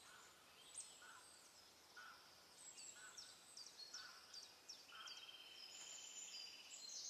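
Near silence with faint birdsong: a bird repeating short, falling chirps over and over, with a second, steady trill joining about five seconds in.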